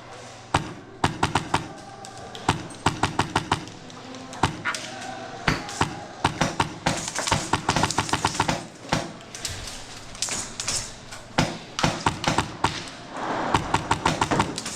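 Airsoft guns firing in repeated short bursts of rapid, sharp clacks, several shots a second, as the teams exchange fire.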